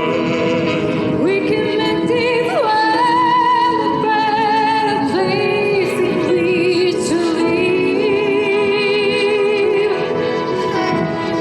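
Live music: a woman singing a melody in long, high held notes with wide vibrato over band accompaniment. The voice climbs to its highest notes about two to three seconds in.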